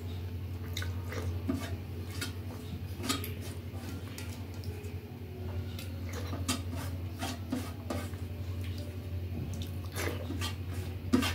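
Close-up eating by hand: fingers mashing and scooping wet food on a steel plate and mouth smacking while chewing, a loose string of small wet clicks and smacks. A steady low hum runs underneath.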